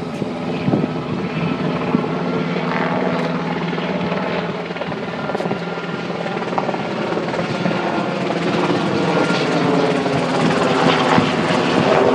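UH-60 Black Hawk twin-turbine military helicopter flying overhead, its steady rotor beat and engine growing gradually louder as it comes closer.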